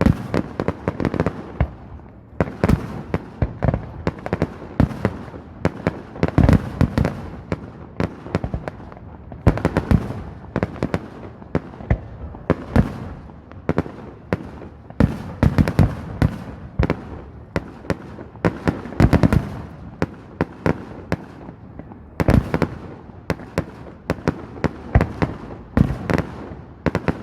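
Many fireworks and firecrackers going off together: a dense, continuous run of sharp bangs and crackles, with louder volleys every few seconds.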